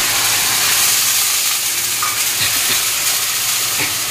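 Spice masala sizzling steadily in hot mustard oil in an aluminium kadai, with a few light scrapes of a spatula as it is stirred.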